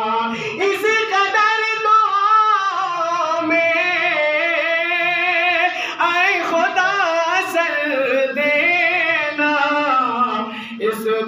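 A man singing a naat unaccompanied, drawing out long wavering, ornamented notes over several phrases.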